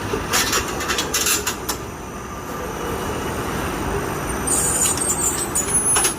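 A semi-automatic walnut cake (hodu-gwaja) machine running with a steady mechanical rumble and a run of sharp metallic clicks in the first two seconds. A brief high hiss comes about four and a half seconds in.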